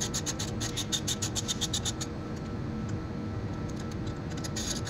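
Socket wrench ratcheting while a 10 mm bolt is backed out through a long extension: a quick even run of clicks, about nine a second, for the first two seconds, then a short cluster of clicks near the end.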